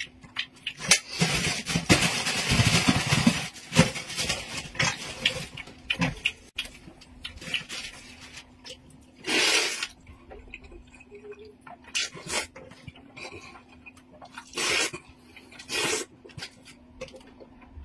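A man slurping noodles from a pot and chewing noisily. There is a long slurp of a few seconds about a second in, then several short slurps later, with wet mouth clicks throughout.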